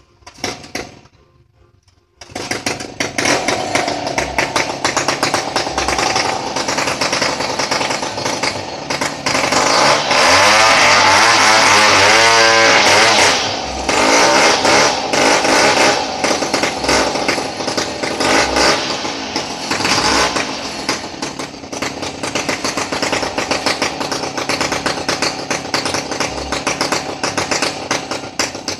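Two-stroke chainsaw running at high revs, starting abruptly about two seconds in. It is loudest for a few seconds in the middle, where its pitch dips and rises as it works.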